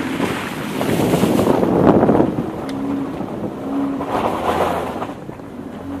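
A car fording a shallow rocky river, heard from inside the car: water splashes and surges around it, loudest about a second or two in and again around four seconds in. The engine's steady hum runs underneath.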